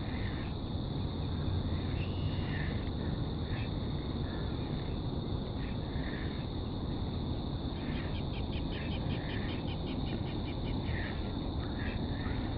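Marsh ambience: birds calling now and then, with a quick rattling run of about a dozen notes about eight seconds in, over a steady high buzz and a low rumble.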